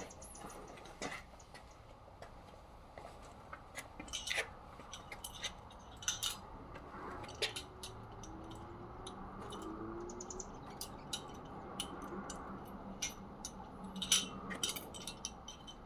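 Scattered light metallic clicks and clinks from handling trunk lift struts and prying at their small retainer clips.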